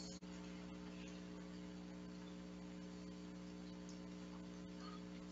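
Steady low electrical hum with several overtones over a faint hiss.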